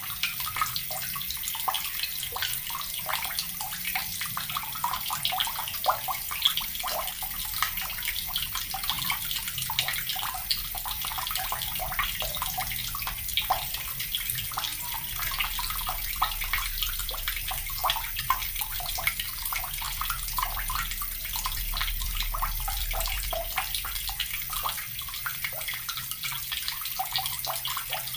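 Water from a tap pouring steadily into a bucket, a continuous splashing patter of many small droplet ticks.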